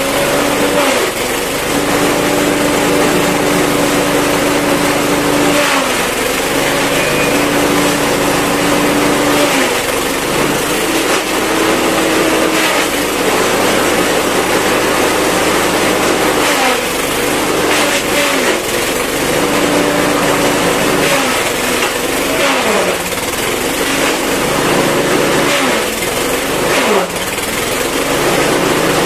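BT5000 grass chopper with eight blades, driven by a small engine, chopping odot grass stalks. The engine runs steadily over the constant noise of the cutting, and its note sags several times as bundles are fed in, then recovers.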